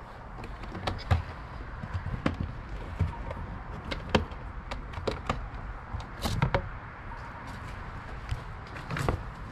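Scattered clicks and knocks of a plastic bilge hatch cover being worked loose and lifted open on a fibreglass boat deck, with corrugated hoses being pushed aside; a few sharper knocks stand out, about a second, four seconds, six seconds and nine seconds in.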